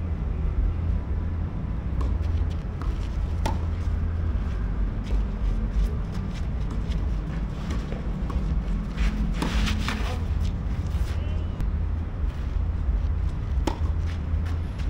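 A few sharp knocks of a tennis ball struck by rackets, spaced seconds apart with a cluster past the middle, over a steady low rumble.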